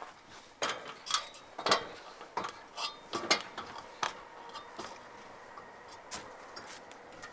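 Irregular knocks, clunks and clatters of a person climbing aboard a wooden sailboat: feet and hands striking the hull and deck. The louder knocks come in the first few seconds, then thin out to lighter taps.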